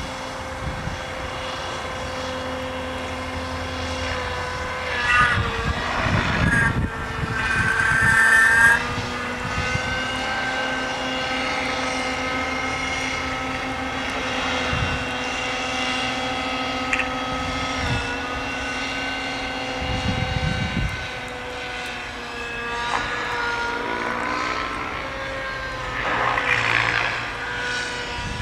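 XCell Tempest model helicopter's OS .91 two-stroke glow engine and rotor running at high speed in aerobatic flight, a steady multi-toned whine. The pitch bends and wavers briefly about a quarter of the way in and again near the end as the helicopter manoeuvres.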